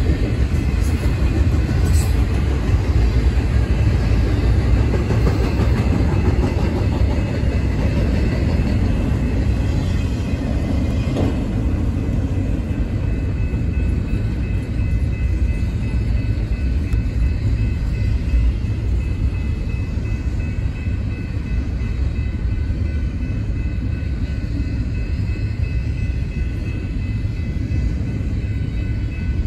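BNSF double-stack intermodal well cars rolling past on the rails: a steady rumble of steel wheels on track, with faint steady high-pitched tones above it.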